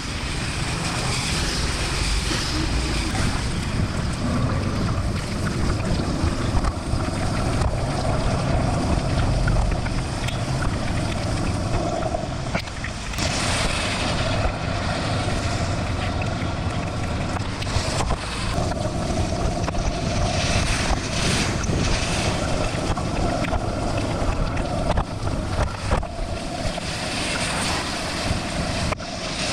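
Wind buffeting the microphone over the hiss of bicycle tyres rolling through water on a rain-soaked road, heard while riding in heavy rain.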